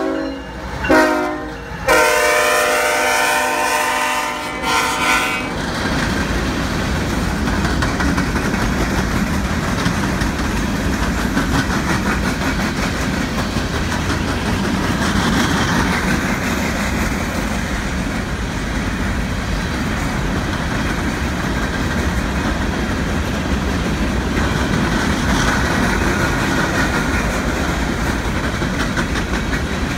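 A diesel locomotive's hybrid K5HLL-R2 air horn gives a short tap about a second in, then a longer blast that stops about five seconds in. After that the empty coal hopper cars roll past with steady wheel-on-rail noise.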